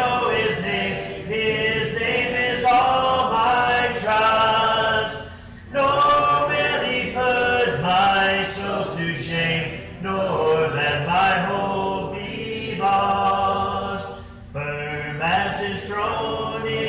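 A group of voices singing a hymn together a cappella, in phrases with long held notes and short breaks between them.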